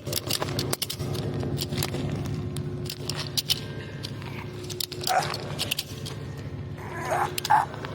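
Ratchet lashing belt being cranked tight: irregular metallic clicks of the ratchet handle and pawl over a steady low machinery hum. A few short louder sounds come a little after halfway and near the end.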